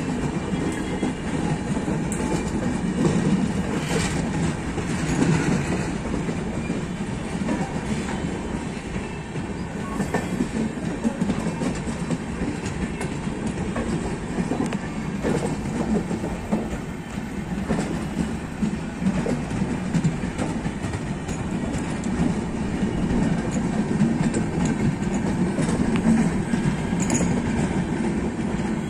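Passenger coaches of the 12307 Howrah–Jodhpur Express rolling past close by: a steady rumble of the running gear, with the wheels clacking over rail joints throughout.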